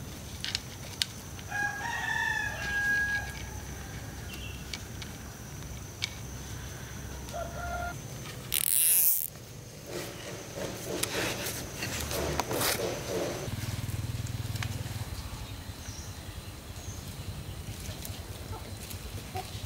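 A rooster crows about two seconds in, with more short fowl calls later. About halfway through there is a brief loud rush of noise, the loudest sound in the stretch.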